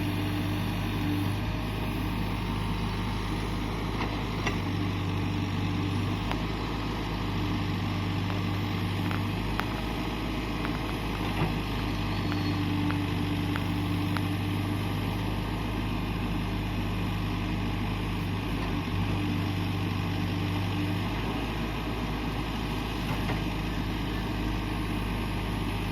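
Engine of a working machine running steadily with a low hum that swells and eases every few seconds, with a few faint clicks.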